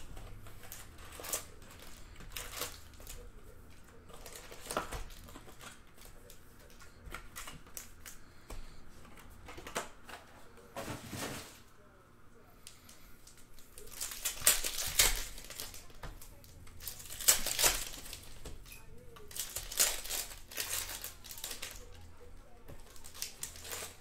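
Basketball trading card packs being opened by hand: plastic pack wrappers crinkling and tearing, with light clicks of cards and cardboard being handled. The tearing and crinkling gets louder in several bursts about two-thirds of the way through.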